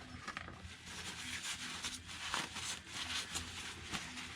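Light rubbing and handling noise with faint scattered clicks from a plastic RC wheel rim being turned over in the hands.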